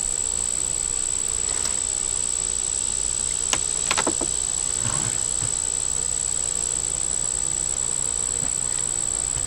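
Honey bees buzzing steadily around an open hive, with a steady high-pitched whine over it and a few faint clicks about three and a half to four seconds in.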